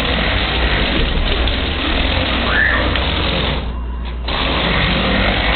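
LEGO Power Functions electric motors driving a LEGO Crystal Reaper model, the plastic gear train whirring steadily. The drive stops for about half a second near four seconds in, then runs again.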